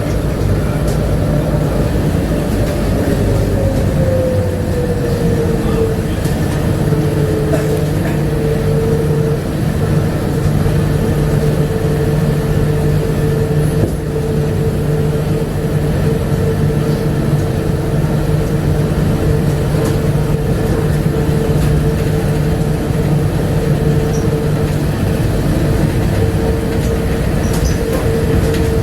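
Bombardier APM100 rubber-tyred people mover running along its guideway: a steady motor whine over a low hum and tyre rumble. The whine falls in pitch about four to six seconds in as the car eases off, then holds steady.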